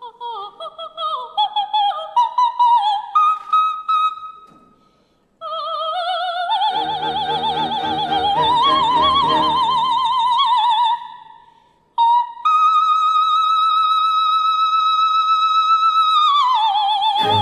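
Coloratura soprano singing a solo operatic passage. It opens with quick, detached high notes, then a wavering phrase over soft orchestral accompaniment. A long high note is held steady for about four seconds, then falls away as the orchestra comes in at the end.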